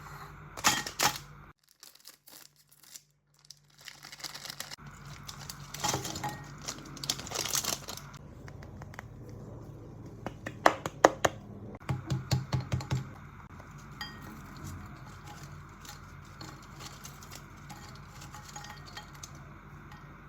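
Food-preparation handling sounds: packaging crinkling and tearing, with utensils and dishes clinking in scattered clusters over a steady low hum.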